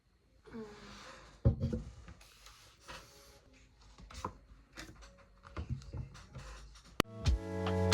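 Scattered small knocks and rustling of things being handled, the loudest a thud about a second and a half in. A sharp click about seven seconds in, after which background music fades in.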